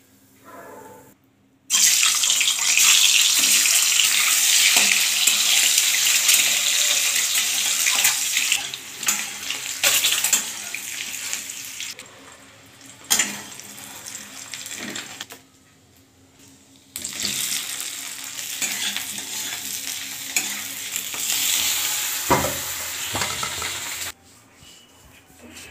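Hot oil sizzling in a steel wok as whole boiled eggs coated in turmeric fry, with a few knocks of a spoon against the pan. The sizzle comes in two long stretches, each starting and stopping abruptly.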